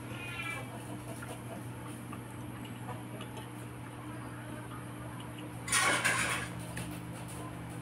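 Close-up eating sounds: soft chewing and small mouth clicks while fish is picked apart by hand, with one louder rustling scrape about six seconds in, over a steady low hum.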